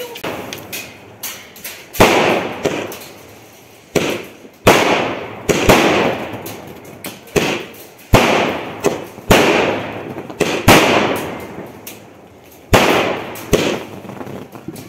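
Multi-shot sky shot fireworks cake firing in sequence: a sharp bang roughly every second, some closer together, each trailed by the crackling fizz of the shell bursting overhead.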